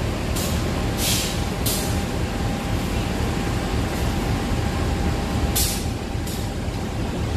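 Diesel-electric locomotive idling in a station: a steady low rumble with a faint steady tone, broken by about five short hisses of air.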